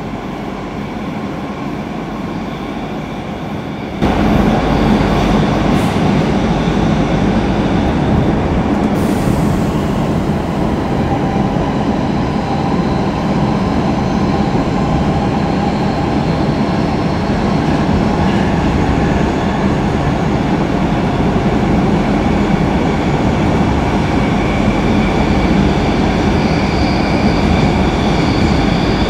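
Stockholm Metro C6 subway car running, heard from inside the passenger cabin: a steady rumble and wheel-on-rail noise that gets suddenly louder about four seconds in.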